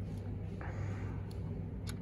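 A few sparse metallic clicks of a wrench being fitted and turned on the clutch pressure plate bolts, over a steady low hum.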